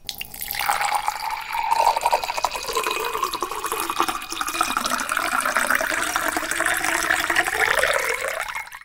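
Liquid pouring and splashing, starting abruptly and running on steadily, then fading out just before the end.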